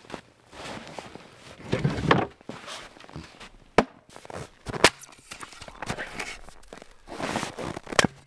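Footsteps crunching through deep snow, a few heavy steps, with two sharp knocks about four and five seconds in.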